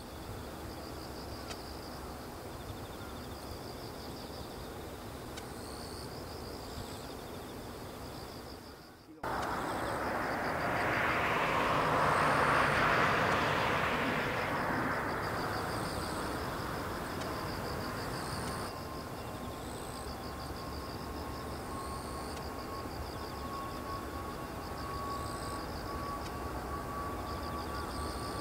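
Twin jet engines of a Boeing 777-300 on its takeoff run. After a quieter stretch of steady background, a broad rush of jet noise swells in suddenly about nine seconds in and peaks a few seconds later. It then settles into steady engine noise, with a thin whine that slowly rises in pitch over the last ten seconds.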